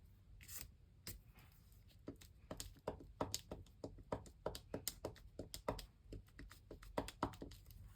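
Quick, light taps of a pen or dotting tool on paper, irregular at about three or four a second from about two seconds in, as small dots are dabbed onto a journal page.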